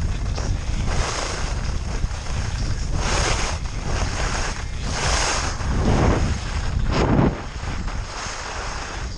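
Wind buffeting the camera microphone during a fast ride down a snowy slope, with the hiss and scrape of edges carving the snow swelling in several surges: about three and five seconds in, then a rougher, lower scrape around six to seven seconds.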